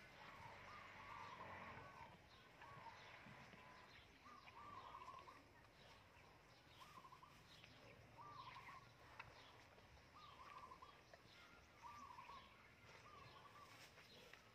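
Faint birdsong: a short warbling phrase repeated every one to two seconds, with thin high chirps between.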